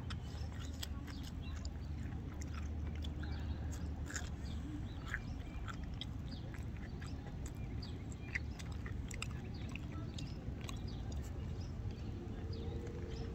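A person chewing a freshly deep-fried breaded mozzarella fry, with many small, irregular mouth clicks and crunches over steady low background noise.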